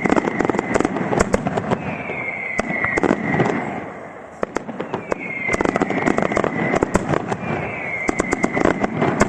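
Daytime aerial fireworks going off: a dense, rapid string of sharp bangs and crackling reports, over which four whistles in turn glide downward in pitch.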